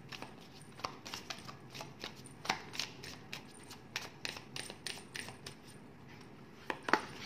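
A deck of oracle cards being shuffled and handled: irregular light clicks and taps of card against card, with a louder cluster of clicks near the end.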